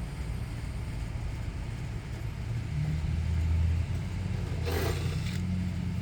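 Low, steady rumble of an engine or motor running, growing louder about halfway through, with a brief scrape or clatter near the end.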